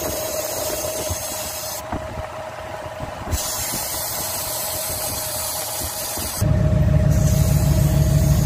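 Car engine idling while old refrigerant hisses out of the air-conditioning low-pressure port through a recharge hose, being vented to bring the pressure down before recharging. The hiss drops out twice, briefly. About six seconds in, a louder, deeper engine rumble comes in.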